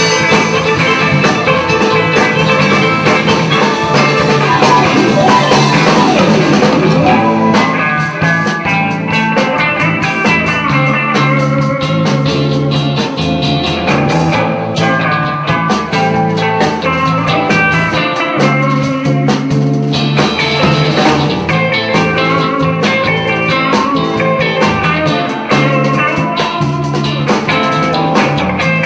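Live band playing a pop ballad: electric guitar over bass guitar, keyboards and a drum kit.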